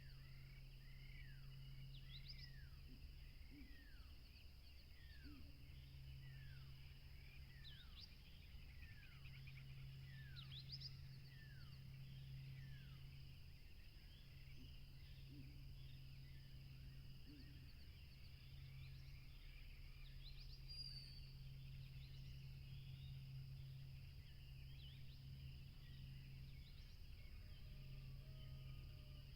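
Faint birdsong. One bird repeats a short, downward-sliding whistled note a little over once a second, stopping about halfway through, while other birds give scattered higher chirps over a steady high-pitched hiss and a low hum.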